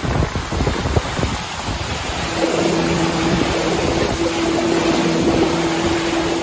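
Water rushing and hissing past the hull of an IMOCA 60 racing yacht sailing fast through rough sea, with wind. About two seconds in, a steady low humming tone sets in over the rush.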